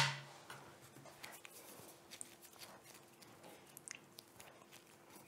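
One sharp metallic clack as a hand-cranked pasta machine is set down on the wooden board, followed by faint handling sounds: light ticks and rustles of hands working dough, over a faint steady hum.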